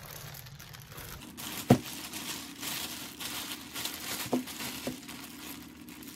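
Clear plastic seafood-boil bag crinkling and rustling as it is handled and opened, with a sharp knock about a second and a half in, the loudest sound, and a couple of softer taps later.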